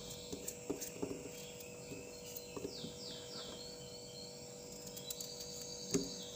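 Light clicks of a knife cutting cubes off a hand-held raw potato, with the pieces dropping into a plastic colander, the loudest click near the end. Birds chirp in the background, with a short run of falling chirps about halfway through.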